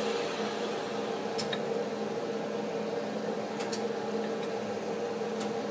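A 60-inch Monarch T-lathe running with a steady electric hum from its AC drives and servo motors as the cross slide power-feeds. A few faint clicks sound over it.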